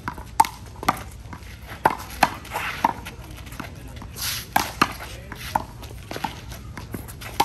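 Handball rally: a small rubber handball slapped hard by players' hands and smacking off the wall and court, giving irregular sharp cracks about one or two a second.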